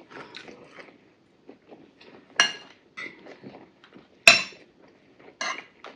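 Metal spoons and forks clinking and scraping against ceramic bowls, a few separate sharp clinks with the loudest about four seconds in.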